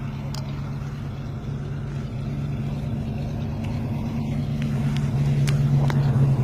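A steady low engine drone that grows gradually louder, with a few faint clicks over it.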